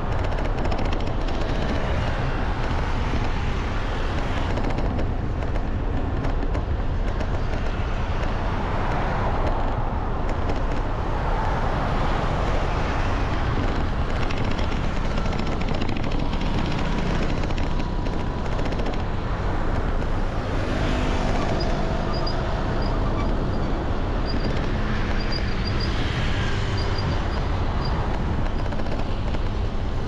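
Steady rumble of a moving vehicle, with road and wind noise.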